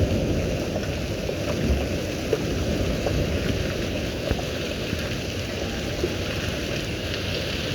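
Heavy rain falling steadily, with a few sharper drop hits here and there.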